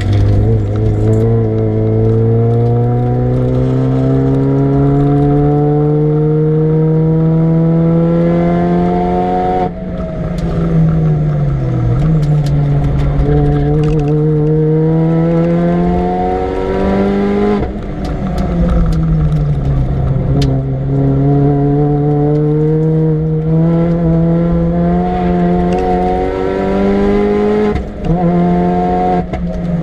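Supercharged 1.6-litre four-cylinder of a Mini Cooper S R53, fitted with a TVS900 supercharger, pulling hard at full throttle on track. The revs climb in one long rise for about ten seconds, fall away as the throttle lifts, and climb again. Near the end come several shorter rising pulls broken by gear changes.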